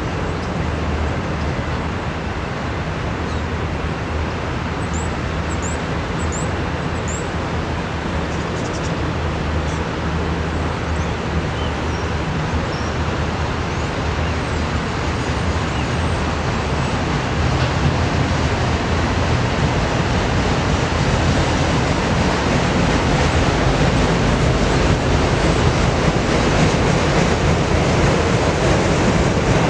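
Freight train of autorack cars rolling past: the steady rolling noise of steel wheels on rail, getting somewhat louder in the second half.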